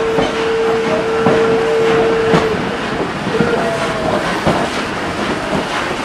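Train rolling along the track, heard from aboard: a steady rumble with irregular clicks of the wheels over rail joints. A long steady whistle note sounds over it and stops about two and a half seconds in.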